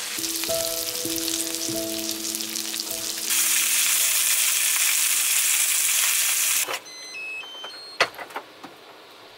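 Pork neck and green peppers sizzling in a small frying pan on a portable gas stove as they are turned with chopsticks. The sizzle grows louder about three seconds in and cuts off abruptly near the end, followed by a sharp click.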